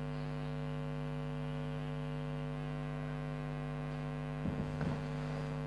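Steady electrical mains hum, a stack of unchanging tones. About four and a half seconds in, a brief faint scrape and a few clicks from a spatula turning yam pieces on a dosa tava.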